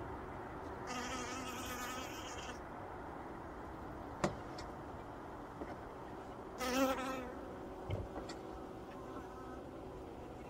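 Honeybees buzzing close past at the hive entrance: one buzz about a second in, and a shorter, louder one past the middle. A sharp click comes in between.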